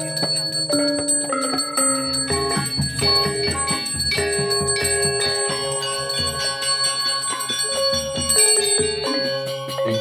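Balinese gamelan playing a melody of flat, ringing bronze tones that change note by note, over a steady high ringing of bells.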